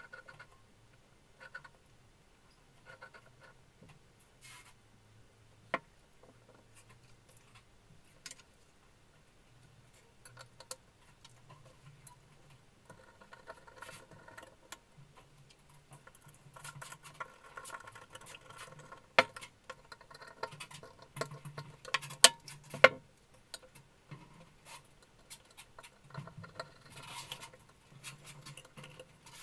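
Reassembly of an old Venusberg breast drill by hand: scattered light taps, scrapes and rattles as the gear housing cover is fitted and parts are handled, with a few sharp metal clicks a little past the middle.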